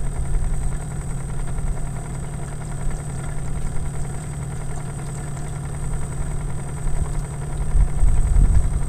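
Small single-cylinder gasoline engine of a wooden fishing boat idling steadily, a low even pulsing, a little louder near the end.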